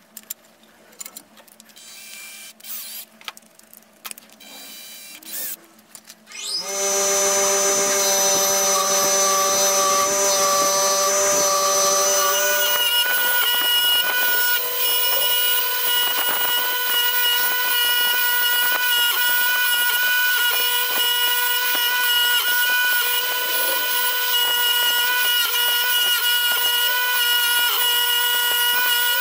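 Faint clicks and knocks of a tap wrench turning a thread-cleaning tap in the vise's bolt holes. Then, about seven seconds in, a bench grinder motor starts and spins up a steel wire wheel with a rising then steady whine. From about twelve seconds, small steel parts are pressed against the wire wheel, adding a dense steady hiss of wire-brushing under the whine.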